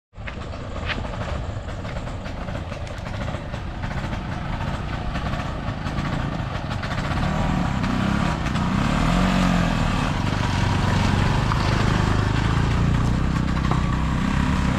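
Auto-rickshaw and motorbike engines running as the vehicles come up a dirt track, the engine noise growing louder about halfway through.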